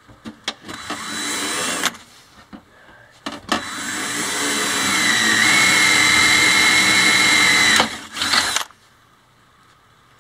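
Cordless DeWalt drill boring holes through sheet metal: a short run about a second in, then a longer run of about four seconds that climbs to a steady whine as the bit cuts, and a brief burst near the end.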